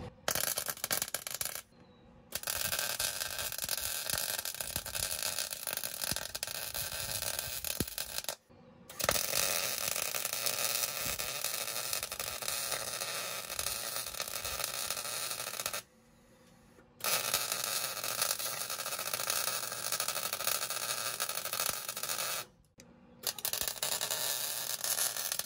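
Wire-feed welder arc crackling and sputtering as it welds steel, in five runs of several seconds each, with short pauses between beads where the arc stops.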